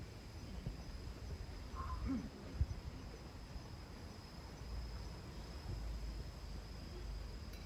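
A steady, unbroken high-pitched insect trill over a low rumble of wind buffeting the microphone.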